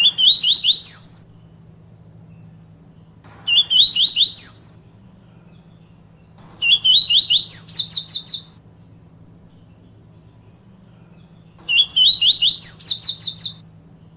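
Papa-capim seedeater singing its 'tui tui viviti' song: four phrases a few seconds apart, each a few quick rising whistled notes, then a fast high trill.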